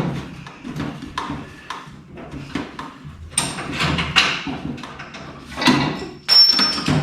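Irregular clinks and knocks of hand tools and metal parts being worked on during car disassembly, with a brief high-pitched tone about six seconds in.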